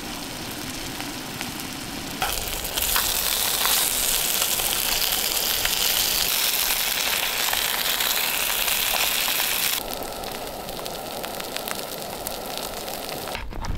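Beef burger patties sizzling and spitting in a small frying pan over a gas camping stove. The sizzle grows louder about two seconds in and drops back near the end.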